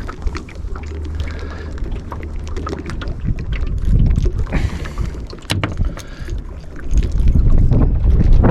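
Wind buffeting the microphone aboard a small boat on open water, with a few sharp knocks and clicks. The wind rumble gets much louder about seven seconds in.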